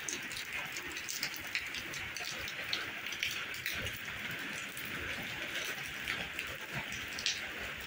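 Steady rain falling, with scattered drops ticking on surfaces close by.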